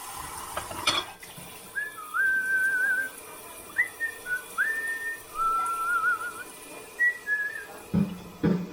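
A person whistling a short tune of several held, slightly wavering notes, with a sharp clink about a second in. Near the end a regular low thumping beat starts, about two beats a second.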